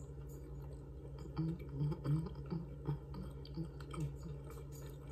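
Close-up chewing of a mouthful of steamed chicken breast sandwich: a run of soft wet mouth clicks and smacks, about two or three a second, starting a little over a second in, over a low steady hum.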